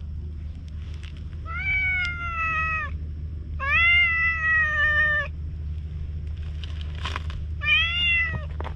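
Tabby cat meowing three times, long drawn-out meows that dip slightly in pitch, the middle one the longest and loudest, over a steady low rumble.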